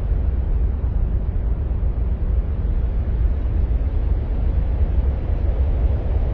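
Steady deep rumbling noise with a thin hiss above it, an ambient track presented as the sound of Mars.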